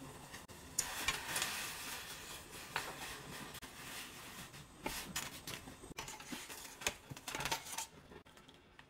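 Oyster mushrooms blanching in a pot of boiling salted water: bubbling water with a run of knocks and clicks as a wooden spoon stirs them against the metal saucepan, easing off near the end.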